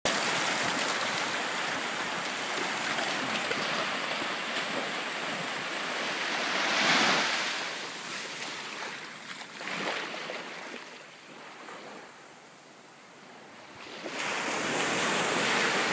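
Small ocean waves breaking and washing up the beach. The surf noise swells to a peak about seven seconds in, falls away, then rises again near the end.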